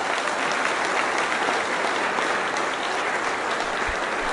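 Audience applauding steadily, a dense spatter of many hands clapping.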